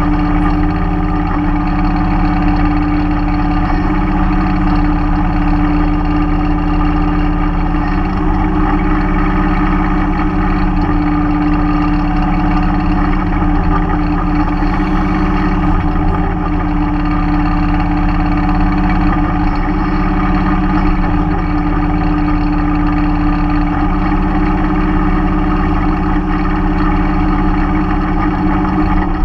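Mahindra 3016 compact tractor's diesel engine running steadily at a constant speed, with small shifts in its note now and then.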